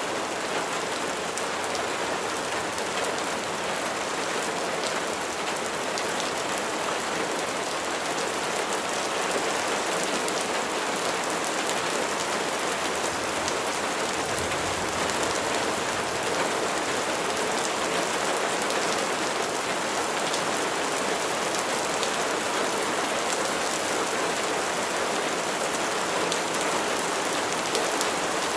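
Steady rain falling on a surface, a dense hiss of many individual drops ticking through it.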